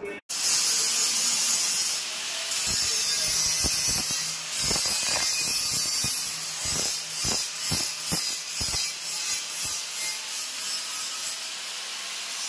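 Handheld angle grinder working a stainless steel handrail: a loud, steady rasping hiss from the disc on the steel pipe, broken by many irregular sharp clicks.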